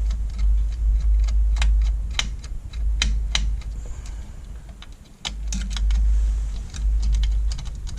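Scattered small clicks and light knocks of plastic and metal parts as the monitor's backlight inverter board is unplugged and lifted out, over a low, uneven rumble of handling.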